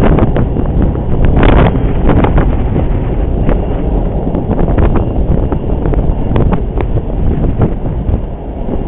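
Wind buffeting the camera's microphone: a loud, gusty rumble with short pops and crackles throughout.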